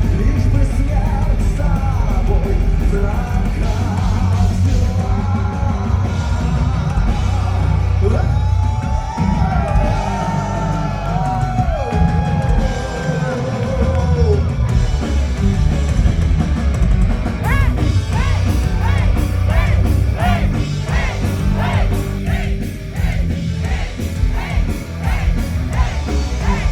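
Power metal band playing loud and dense, with pounding low end and a high melodic lead line that bends and wavers over it, breaking into fast repeated wavering notes in the last third.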